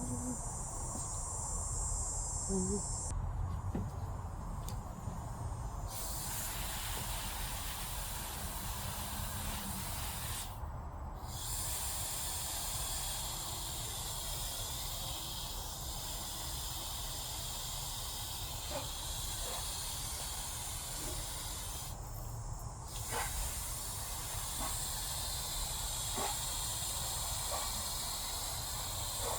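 Steady hissing sizzle of food cooking in a hot pan, with a few faint light clicks and knocks.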